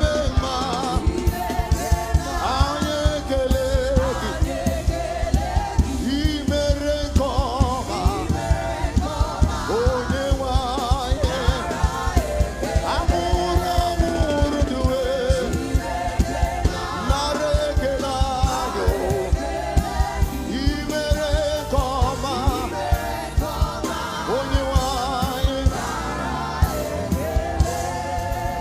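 Live gospel music: singing with a choir and a band over a steady drum beat.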